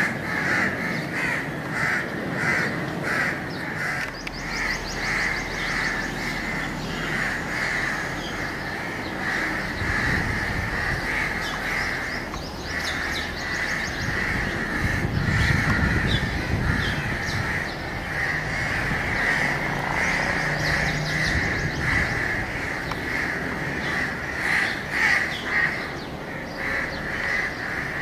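Crows cawing over and over, with a brief low rumble about halfway through.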